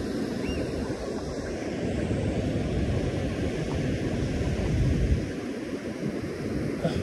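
Surf breaking and washing up a sandy beach, a steady rushing noise, with wind buffeting the microphone in low gusts, the strongest about five seconds in.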